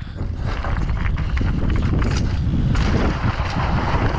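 Wind rushing over the microphone while a mountain bike rolls down a loose dirt and gravel trail, with tyre crunch and small clicks and knocks of the bike over stones. Louder after the first second, then steady.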